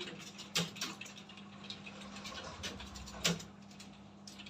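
Computer keyboards clicking as several people type at once: quick, irregular keystrokes with a couple of louder key strikes, over a steady low hum.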